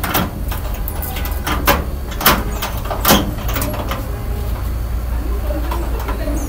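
A locked front door's handle being tried and rattled: a few sharp clicks and knocks, the loudest two a little past the middle, over a steady low rumble.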